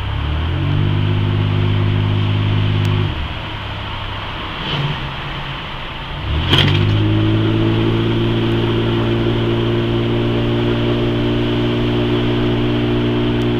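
1997 Buick LeSabre Limited's 3.8-litre V6 heard from inside the cabin, pulling under throttle at a steady engine speed over steady road noise. It drops away for about three seconds in the middle, leaving only tyre and road noise, then comes back on after a brief knock.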